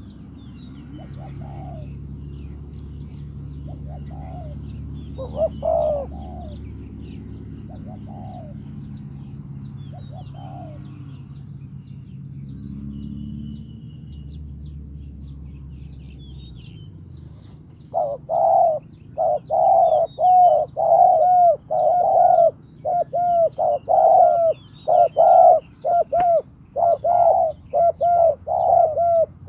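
Spotted doves cooing: a few faint coos at first over a low rumble, then from about two-thirds in a loud, rapid run of coo notes, roughly two a second. This is a decoy dove calling to lure wild doves.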